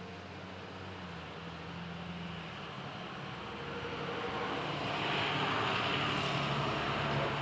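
Heavy rain falling, with a rushing noise that swells over a few seconds past the middle, then starts to ease near the end.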